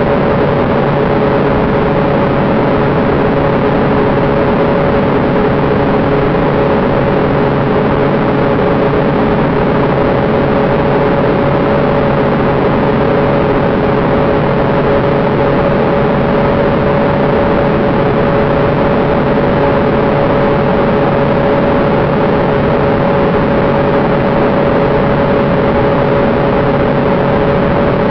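Steady in-flight aircraft noise heard from the cockpit: a constant drone of engine and airflow with a steady hum, unchanging in level or pitch.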